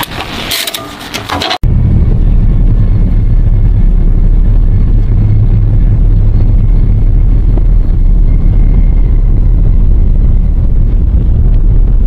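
A chain clinks and rattles against its shackle for about a second and a half. Then comes a sudden cut to the loud, steady, deep rumble of a heavy truck's engine and tyres as it hauls a tank on a lowboy trailer.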